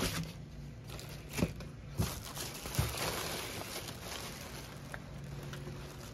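Clear plastic air-column packaging and wrap rustling and crinkling as a hand pulls it about in a cardboard box, with three sharp crackles a little over a second, two seconds and nearly three seconds in.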